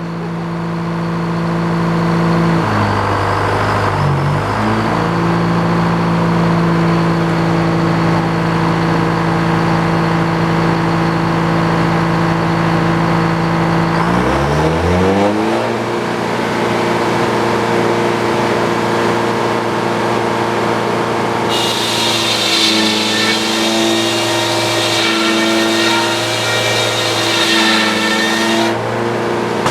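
Sawmill engine running steadily, then revving up about halfway through. A few seconds later the blade cuts through the white pine log with a high, wavering whine over the engine, and the cutting stops suddenly near the end.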